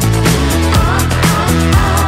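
Upbeat background music with a steady drum beat, bass line and electric guitar.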